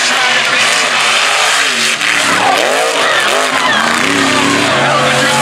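Mega truck's race engine revving, its pitch climbing and dropping again and again as the truck is driven hard on a dirt track, over a hiss of tires throwing dirt.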